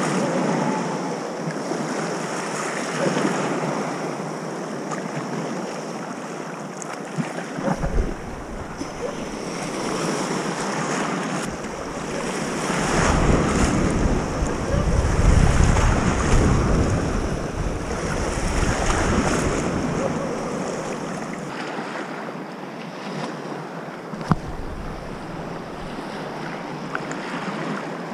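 Sea waves washing in shallow water, with wind buffeting the microphone in gusts, loudest about halfway through. A couple of brief sharp knocks stand out, one near 8 seconds and one near the end.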